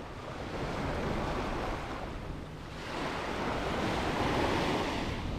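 Ocean surf washing on a beach, with wind buffeting the microphone; the wash swells louder a little past halfway.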